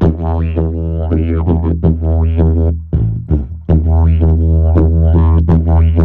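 Tuba, its bell filled with dry ice and water, played like a didgeridoo: a loud, steady low drone with overtones sweeping up and down in a repeating rhythm. About halfway the drone drops out for under a second, broken by a few short puffs, then comes back.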